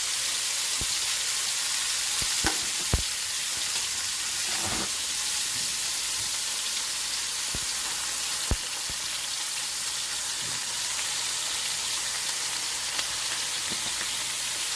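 Shaved ribeye steak sizzling in hot oil in a stovetop skillet, a steady hiss, with a few sharp clicks and knocks scattered through it.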